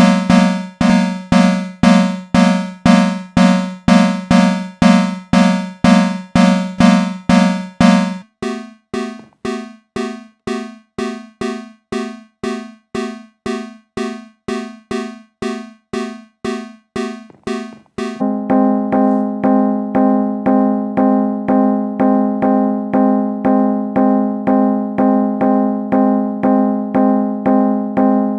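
Fire alarm signals pulsing in march time, about two pulses a second, each pulse a buzzy pitched tone. The sound switches to a different alarm about eight seconds in and again about eighteen seconds in.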